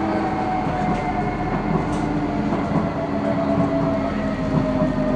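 Docklands Light Railway train running between stations: a steady rumble of wheels on track, with a whine that slowly falls in pitch.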